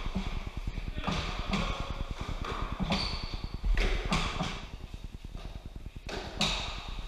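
A game of fives in a hard-walled court: the ball slapped by gloved hands and smacking off the walls in irregular sharp knocks, with footsteps and shoe scuffs on the court floor.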